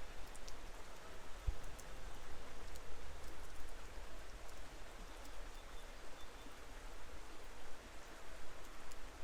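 Steady rain falling, with scattered individual drops and a small stream running.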